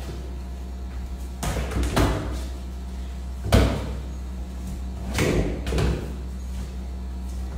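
A football kicked against a wall and bouncing on a tiled floor: a few dull thuds, the loudest about three and a half seconds in, over a steady low hum.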